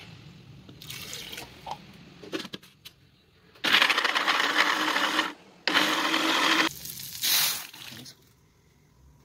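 Electric countertop blender running, grinding spice-paste ingredients (shallots, garlic, candlenut, fingerroot) in two loud runs of about a second and a half and a second, followed by a brief loud burst.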